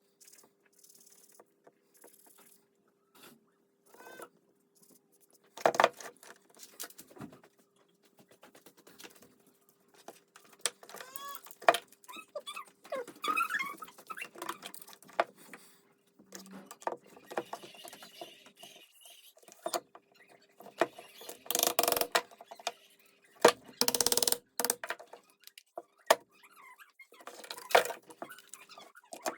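Irregular clicks, clinks and scrapes of small metal parts and hand tools being handled while an electric demolition hammer with worn carbon brush holders is worked on, with several louder knocks and a faint steady hum behind them.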